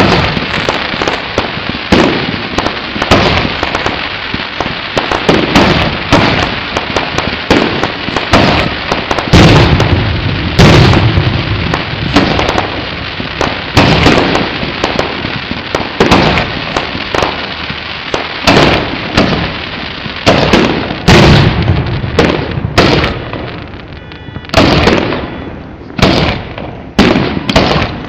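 Fireworks display: loud, rapid, overlapping bangs and crackling, with several heavier booms standing out among them.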